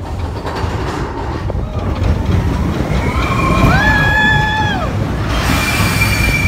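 Expedition Everest roller coaster train rumbling along its steel track, heard from the front row. About halfway through, a high squeal rises, holds and falls. Near the end, a steady high squeal sits over a hiss.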